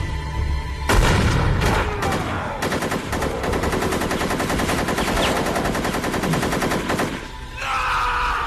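Film gunfire: a few loud shots about a second in, then a long burst of rapid, evenly spaced automatic fire lasting about four seconds that cuts off abruptly.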